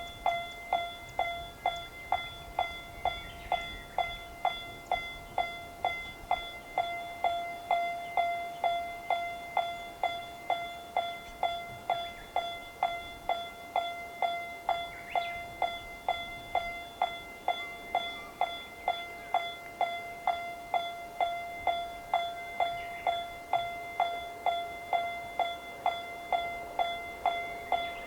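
Japanese railroad crossing warning bell ringing its steady "kan-kan", one pitched ding repeated a little under two times a second, each strike dying away before the next.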